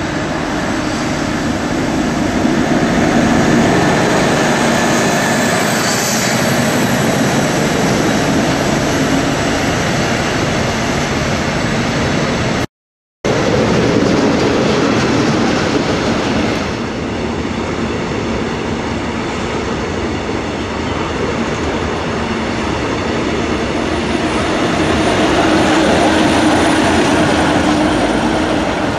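Heavy freight train worked by two diesel locomotives, one at the head and one pushing at the rear. The lead locomotive's engine runs under load as it approaches, then wagon wheels roll past, with a short break to silence about halfway. Near the end the rear pushing locomotive's engine comes by close.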